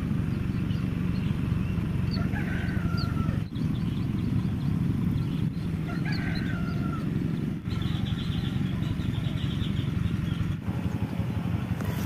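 A rooster crowing twice, about two and six seconds in, each crow falling in pitch, over a steady low rumble. A fast run of high chirps follows about eight seconds in.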